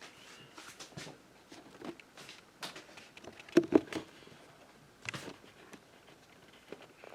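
Hands handling trading cards and their holders on a table: scattered rustles and light clicks, with two sharp taps a little past halfway and another cluster of knocks about five seconds in.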